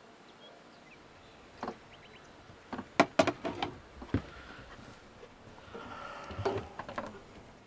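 A string of sharp clicks and knocks, with a quick cluster of them about three seconds in, then a short scraping rustle near the end.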